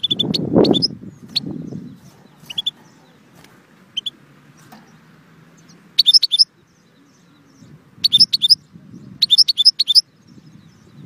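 Caged European goldfinch giving short high chirps, then singing three quick bursts of rapid twittering song at about six, eight and nine seconds in. A loud low rumbling noise fills the first two seconds.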